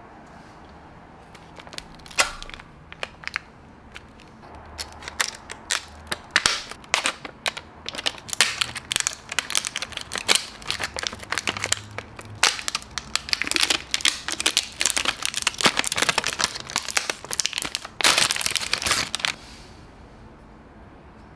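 Clear plastic wrap being crinkled and peeled off a bicycle pedal by hand. The irregular crackling starts sparse, grows busy, and ends with a dense burst of crinkling.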